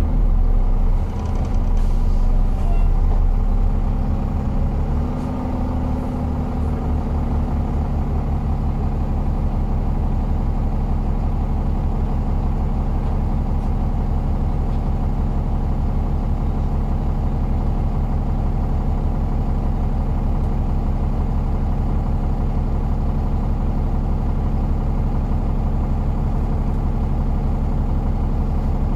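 Alexander Dennis Enviro 400 double-decker bus's diesel engine. For the first few seconds it runs louder with its pitch shifting, then it settles into a steady, unchanging idle.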